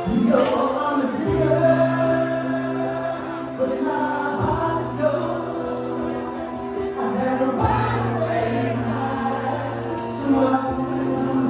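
Live rock band playing a slow ballad: a man sings over held chords and a steady bass line that changes note every couple of seconds.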